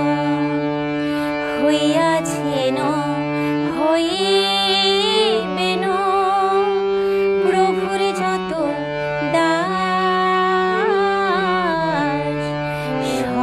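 A woman singing a Bengali Vaishnava devotional song, with wavering, ornamented held notes, over a sustained instrumental drone that shifts chord a few times.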